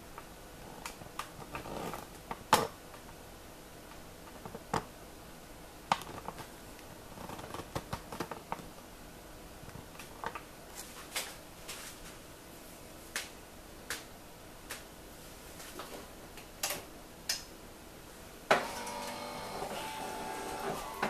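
Scattered light clicks and taps. Then, near the end, a Melitta CI Touch bean-to-cup coffee machine powers up and its internal motor starts running with a steady whirring hum.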